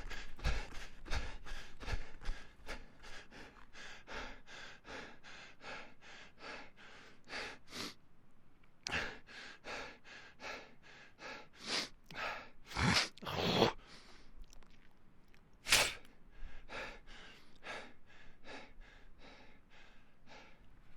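A person breathing hard from running: quick, rhythmic panting at about three breaths a second. A few deep, loud gasping breaths come in the middle, then the panting goes on more faintly and fades near the end.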